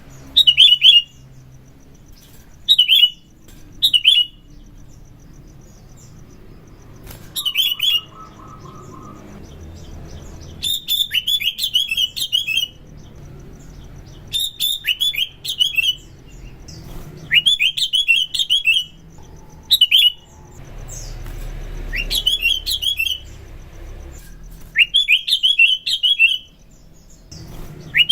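Sooty-headed bulbul (kutilang) singing: about ten short bursts of quick chirping notes, some brief and some running a second or two, with pauses between them.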